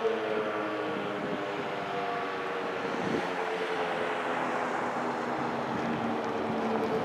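ACA P-15 outdoor warning siren sounding a low, fairly steady tone with overtones. The tone fades about two and a half seconds in and swells again a couple of seconds later.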